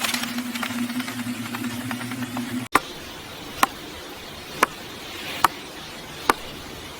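A steady low hum that stops abruptly, then four crisp knife strokes through fruit onto a cutting board, about one a second.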